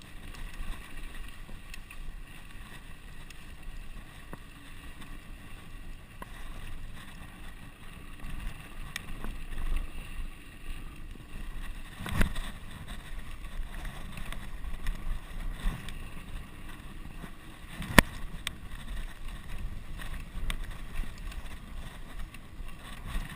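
Mountain bike descending a rough dirt trail at speed: a steady rumble of tyres and frame over the ground with wind on the helmet camera, broken by two sharp knocks, one about halfway through and one later.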